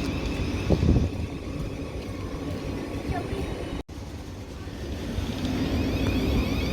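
Electric train running through the station: a steady low rumble with a faint whine, growing louder toward the end, and one sharp knock about a second in.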